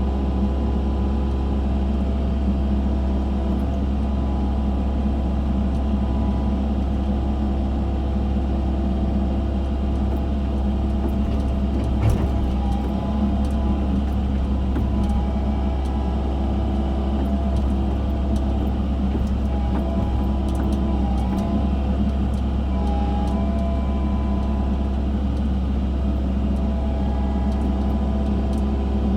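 Excavator engine running steadily at constant speed, with one knock about twelve seconds in and a few faint clicks.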